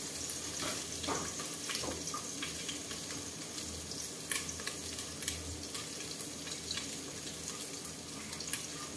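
Onion, garlic and curry leaves frying in oil in a pot: a soft, steady sizzle with scattered crackles and pops.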